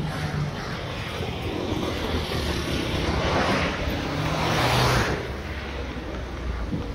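City street traffic: cars passing close by, with tyre and engine noise swelling to a peak about four to five seconds in as a vehicle goes past, then fading.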